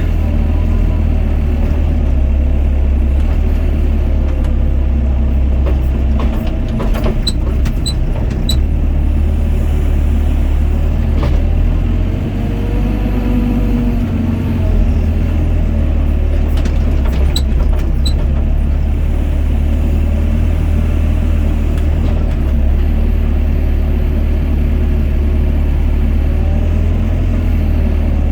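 Doosan DX55 mini excavator's diesel engine running steadily with a deep rumble as it works. A brief tone rises and falls about halfway through, and a few sharp clicks come in small groups.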